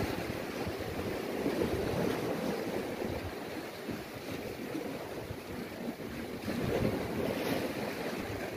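Sea waves washing against shore rocks, a swelling and ebbing rush, with wind buffeting the microphone.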